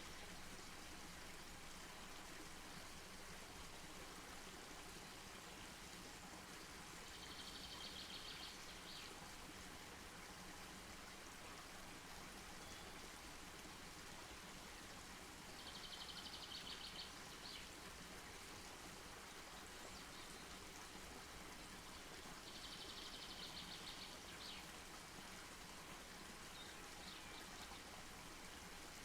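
Faint campfire burning with a steady hiss and a few soft pops. A high trilling call repeats three times, each lasting one to two seconds.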